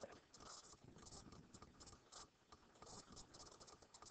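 Near silence, with faint scratchy rubbing and light ticks repeating irregularly from a computer pointing device being slid and clicked while dragging points.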